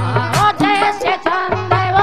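A man singing a Hindi devotional bhajan with a wavering voice, starting about half a second in. He is accompanied by a harmonium's steady held notes and regular hand-drum strokes.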